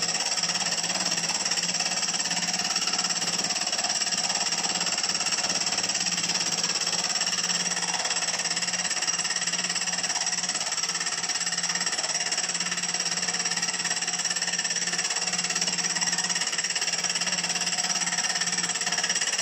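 Bench milling machine running with a boring head cutting a curved saddle into a small metal cylinder block, a steady whine of motor and spindle with the cutter working the metal.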